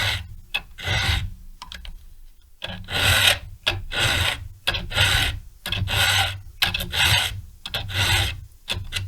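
Hand file rasping across chainsaw chain cutters in repeated push strokes, about one a second, with a short pause about two seconds in: the full-chisel teeth being filed back to a milling angle.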